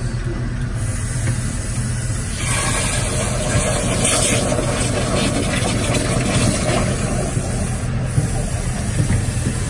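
Engine of the hydraulic power unit running steadily while the Roddie Pit Shot directional drill works its drill rod. A loud hiss joins in about two and a half seconds in and fades out around seven seconds.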